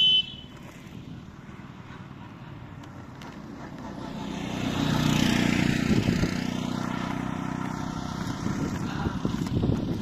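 Inline skate wheels rolling on asphalt, a steady rough rumble that grows louder about four seconds in, with wind on the microphone. A short high beep sounds right at the start.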